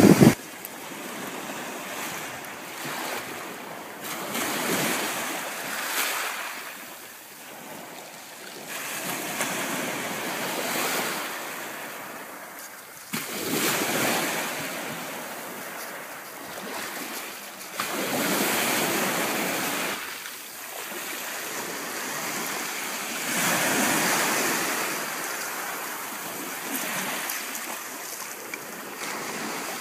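Sea waves breaking and washing over a pebble beach: a hiss that swells and fades every few seconds.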